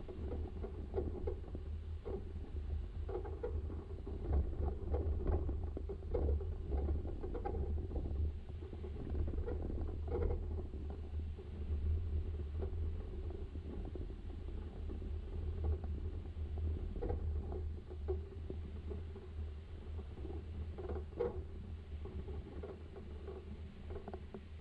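Low rumble of a vehicle driving slowly over a rough, rutted dirt road, with many irregular knocks and rattles as it bumps along.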